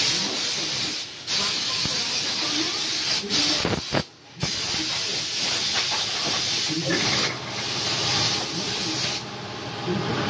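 Loud spraying hiss in long bursts, cutting off briefly about a second in, about four seconds in and near seven seconds, like a blow gun or sprayer being triggered on and off. A low steady hum joins in for the last few seconds.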